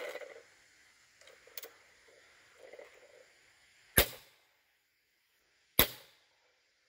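Two single shots from an SMG .22 fully automatic PCP air rifle, each a sharp crack with a short tail, a little under two seconds apart in the second half.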